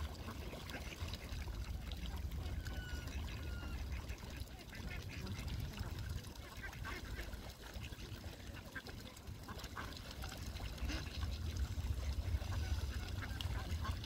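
A flock of ducks and other waterbirds calling in short scattered calls over a steady low rumble, which grows louder in the last few seconds.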